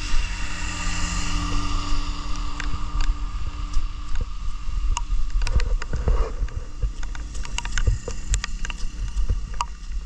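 Wind buffeting a handheld phone microphone while running, a heavy rumble with many sharp taps scattered through it. A steady hum of several pitches fades out over the first few seconds.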